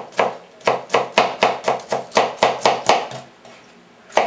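Kitchen knife chopping a red bell pepper into small dice on a plastic cutting board: a quick run of sharp strokes, about four a second, that pauses about three seconds in, with one more stroke at the end.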